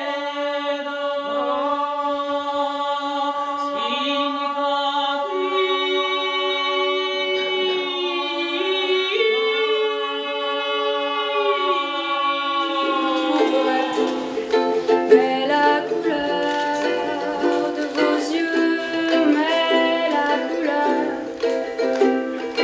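A group of voices singing long held notes together, sliding slowly between pitches as they sing on and around a single note. About 13 seconds in, the music changes to a strummed ukulele.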